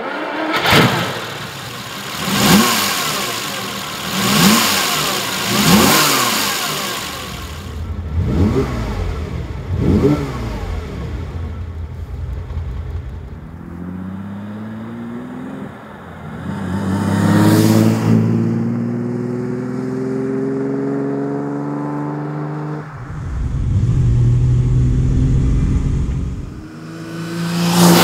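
Ferrari 365 GT 2+2's 4.4-litre V12 starting and being revved several times, then accelerating with its pitch climbing in steps through the gears.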